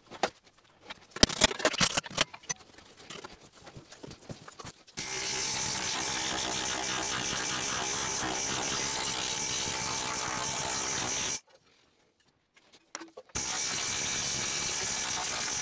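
Planishing hammer running with a steady, rapid hammering as a sheet-metal floor panel is worked under its die. It cuts off suddenly for about two seconds and starts again. Before it come a few seconds of scattered clanks and knocks from handling metal.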